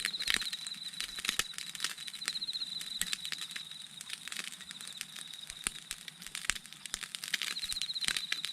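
Campfire crackling with many irregular sharp pops and clicks. A high, thin trill sounds three times in the background.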